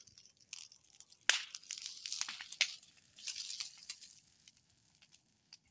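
Dry cut bamboo and dead leaves crackling and snapping: irregular sharp pops, the loudest about a second and a half in, over a dry rustling hiss.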